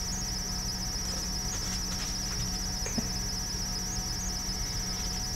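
Steady, high-pitched insect trilling, with a low steady hum underneath and a faint tap about three seconds in.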